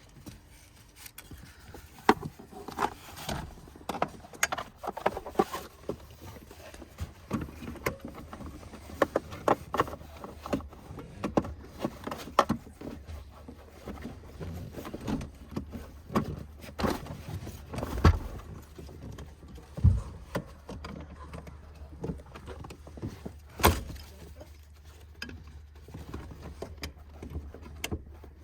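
Irregular knocks, clicks and rattles of a car seat and its belt hardware being handled and adjusted, with a heavier thump about eighteen seconds in.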